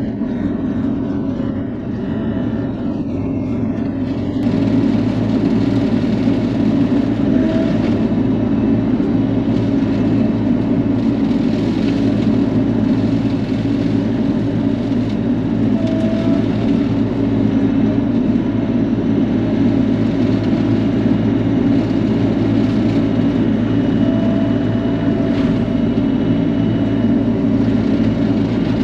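Bobcat E42 mini excavator's diesel engine running steadily, a continuous low drone; about four seconds in it grows slightly louder and brighter.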